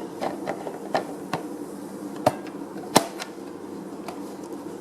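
A series of small plastic clicks and knocks, with the loudest snap about three seconds in, as the filter cover is fitted back onto a Mijia car air purifier. A steady low hum sits underneath.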